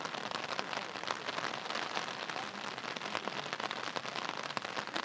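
Steady rain falling on hard surfaces, a dense patter of many separate drop hits.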